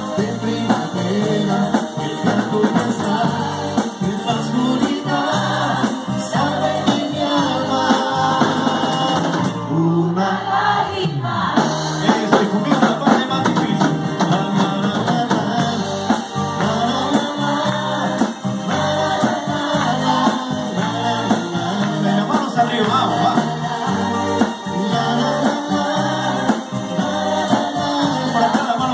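A live band of drum kit, electric guitar and keyboard playing, with singing over it.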